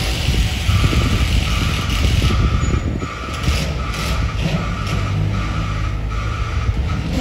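Z3-class tram arriving slowly at a stop, a low rumble of the tram and wheels on the rails over street traffic. A high electronic beep repeats evenly, about one and a half times a second.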